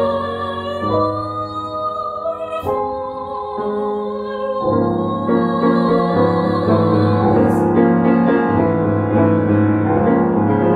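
A woman singing in a classical style while accompanying herself on a grand piano. She holds one long note with vibrato over the piano in the first few seconds, and in the second half the piano plays fuller chords, ending as piano alone.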